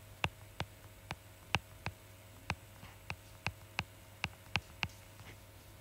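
A stylus tapping and clicking on a tablet screen while handwriting words: a string of light, sharp clicks at uneven intervals, about two a second, over a faint steady electrical hum.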